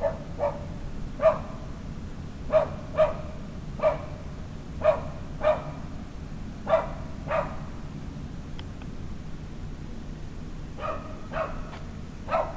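A dog barking repeatedly in short, sharp barks, often in quick pairs, with a pause of a couple of seconds before a last run of barks near the end. A steady low hum runs underneath.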